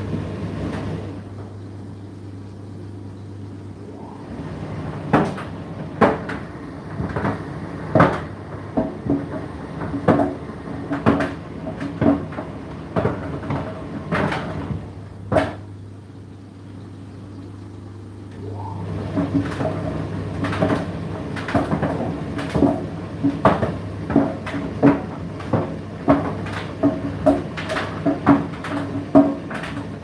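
Indesit IDC8T3 condenser tumble dryer running, a steady motor hum under irregular knocks as the load tumbles and strikes the drum. There are two quieter spells with few knocks, near the start and just past the middle, before the knocking picks up again.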